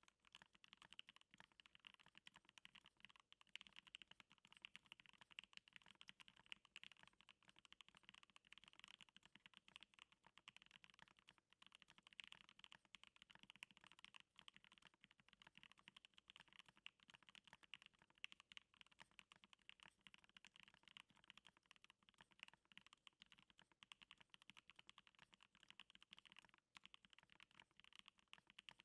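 Continuous fast typing on a Stacked1800 stacked-acrylic mechanical keyboard with Gateron Hippo switches and NicePBT keycaps: a dense, unbroken run of keystroke clacks.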